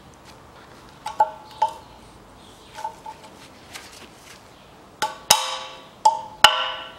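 Steel retaining ring being tapped into its groove in a steering knuckle bore, over a newly pressed-in front wheel bearing. Sharp metallic clinks that ring on: a few light ones in the first three seconds, then four louder strikes near the end.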